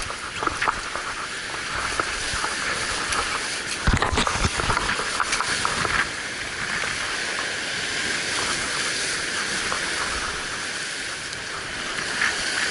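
Surf breaking and washing over rocks: a steady hiss of white water, with a heavier low thump about four seconds in.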